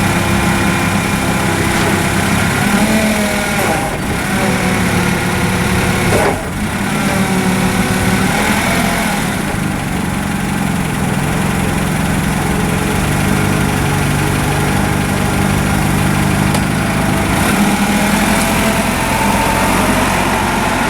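Propane-fuelled Cat C6000 forklift engine running steadily, its pitch rising and falling a few times as it is worked, with a brief dip about six seconds in.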